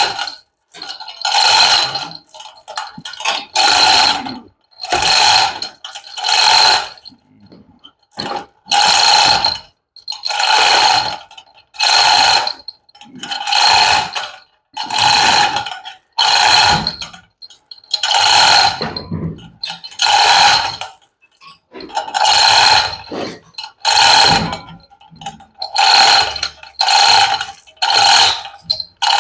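Hand chain hoist being worked to lift an engine: the chain rattles through the hoist in repeated pulls, about one a second, each with a metallic ring.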